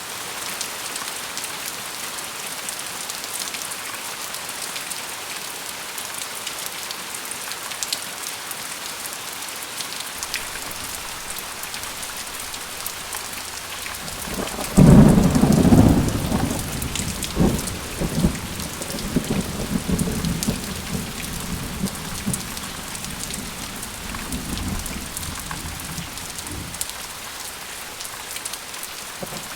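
Steady rain falling, with a loud thunderclap about halfway through that rumbles on in waves for several seconds and slowly dies away.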